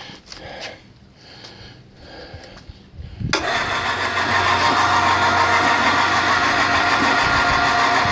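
Electric 1,300-pound hoist motor switching on about three seconds in and running with a steady hum.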